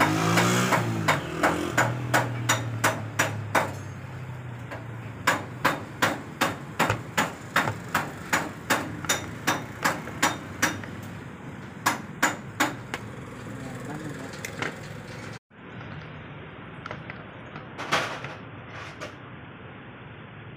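Steady hammering, about two sharp knocks a second, that stops about two-thirds in. After it come a few quieter plastic clicks as the blower fan's housing is unclipped.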